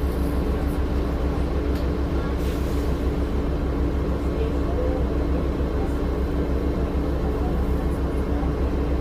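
Cummins ISL diesel engine of a 2006 Orion VII low-floor city bus running steadily, heard from inside the passenger cabin.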